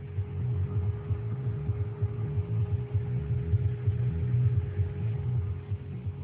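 A running desktop computer gives a steady low hum with a steady mid-pitched tone above it, typical of case fans turning.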